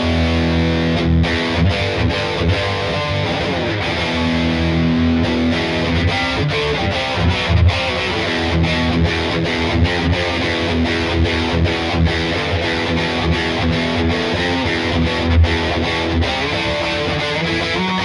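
Ibanez GRGR121M electric guitar played with heavy distortion: low riffing broken by many short, sharp stops, mixed with single-note lines.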